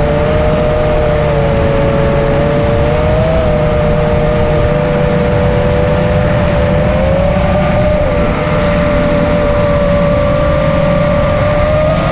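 FPV drone's brushless motors and propellers heard from the onboard camera: a steady whine at two close pitches that drift slightly up and down, over a dense rush of noise.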